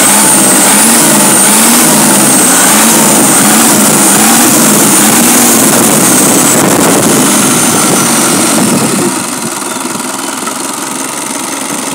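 Nissan YD25DDTi four-cylinder turbo-diesel engine, fitted with a mechanical injection pump, running on the ground with its fan turning. Its speed rises and falls about once a second, then settles to a lower, quieter speed about nine seconds in.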